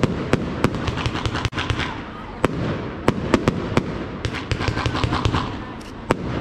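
Aerial fireworks display: a rapid, irregular string of sharp cracks and bangs, several a second, over a continuous low rumble of shell bursts.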